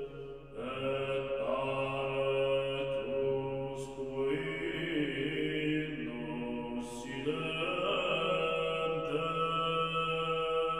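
Background music of slow chanting, long held notes with new phrases beginning about half a second, four and seven seconds in.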